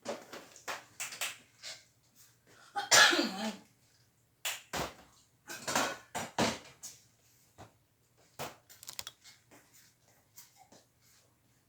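Irregular knocks, clicks and clatter close to the microphone, with a short, louder vocal sound about three seconds in that falls in pitch.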